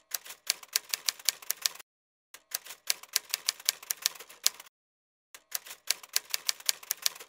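Typewriter keys clacking as a sound effect, in three quick runs of about six strikes a second with short silent pauses between them.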